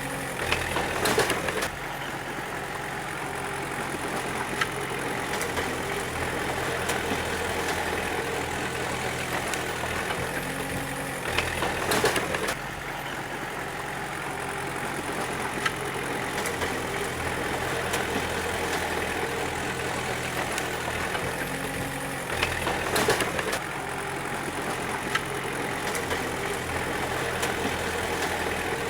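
D20 bulldozer's diesel engine running steadily, with a louder burst of clanking about every eleven seconds: near the start, about 12 seconds in and about 23 seconds in.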